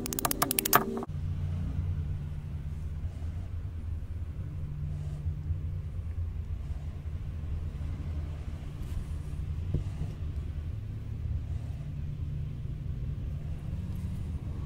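A fast run of sharp clicks for about a second, then a steady low rumble with a hum.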